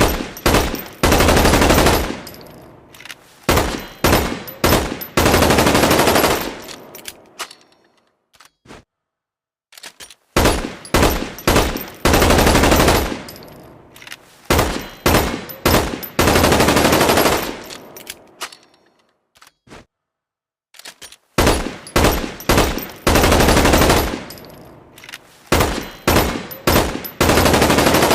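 Gunfire sound effect of a Magpul PDR-C rifle: sharp single shots and short fully automatic bursts, each trailing off in an echoing tail. The same sequence of shots and bursts repeats about every ten seconds, three times, with brief quiet gaps and a few faint clicks between.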